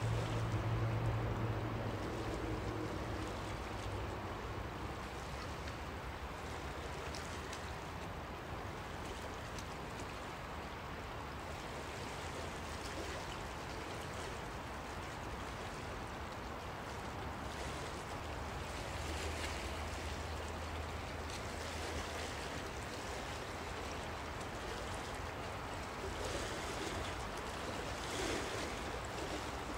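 Small waves washing on a pebble beach, with surges of the wash near the end. A low steady hum can be heard in the first few seconds and again about twenty seconds in.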